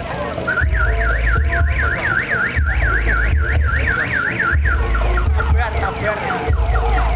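Electronic siren cycling through its tones: a fast up-and-down warble, about three to four swings a second, then from about five seconds in a run of quick falling whoops, over loud low thumping bass.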